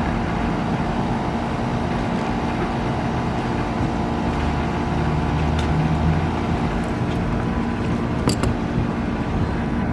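Steady mechanical hum of vehicle or traffic noise, with a low rumble swelling for a second or two near the middle. A single sharp click comes about eight seconds in.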